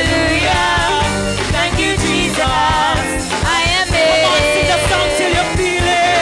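Live church praise-and-worship band playing, with a drum kit keeping a steady beat, keyboard, and voices singing a wavering melody over it.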